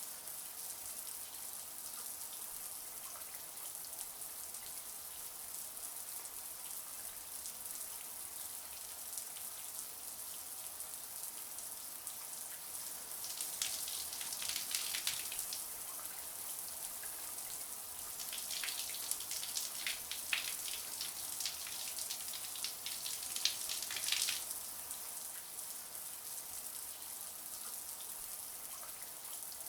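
Shower water spraying and spattering in a steady high hiss. The spatter grows louder and more uneven for a few seconds about halfway through, and again for several seconds later on.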